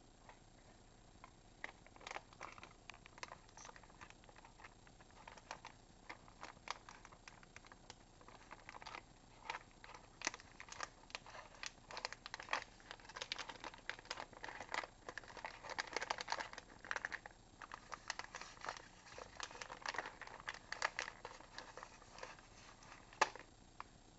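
Pet rats rustling and scratching in loose wood-shaving bedding and cardboard: an irregular run of small crinkling clicks, thickest in the middle, with one sharper click near the end.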